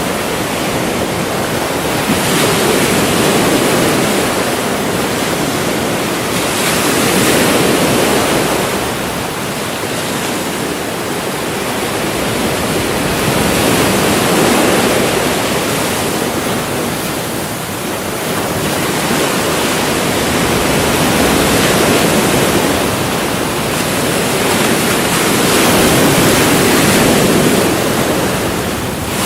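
Ocean surf breaking on the shore: a continuous wash of water noise that swells and ebbs as each wave comes in, about every five to seven seconds.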